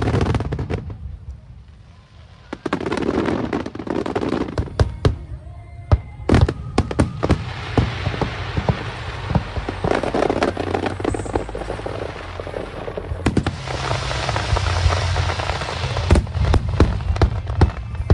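Aerial fireworks display: a loud burst fading away, then from about six seconds in a dense run of sharp bangs and crackling over a continuous rumble.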